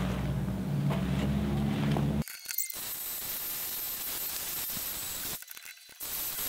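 A low steady hum, then, from about two seconds in, a cordless angle grinder grinding the cut end of steel tubing: a steady high hiss of the abrasive wheel on steel with a thin whine, dropping out briefly near the end before starting again. The grinding is cleaning up the ends of the cut steel.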